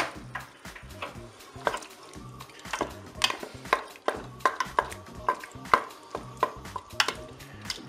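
Wooden spoon stirring whole tomatoes and pork crépinettes in a Cookeo multicooker's cooking bowl, with irregular knocks and scrapes against the bowl, a few a second. Under it is a light sizzle from the cooker's browning mode.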